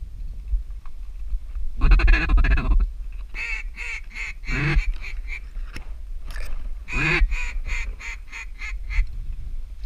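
A hunter's duck call blown in raspy, quacking calls: one long call about two seconds in, then two runs of short quacks, the second quickening toward the end. Wind rumbles on the microphone throughout.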